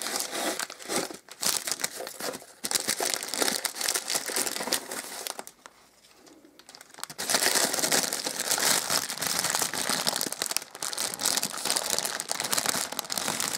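Red gift wrapping crinkling as hands untie it and pull it open. There is a pause of about a second and a half roughly halfway through, then steady crinkling.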